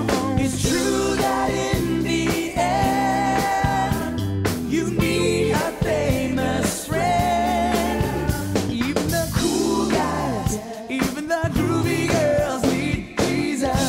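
Upbeat children's worship song: a sung lead vocal over a steady drum beat.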